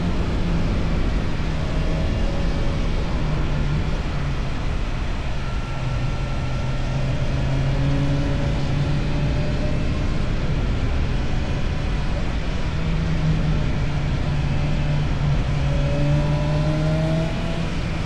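Motorcycle with an Akrapovic exhaust running under way, its engine note holding steady and stepping up and down a few times with throttle and gear changes.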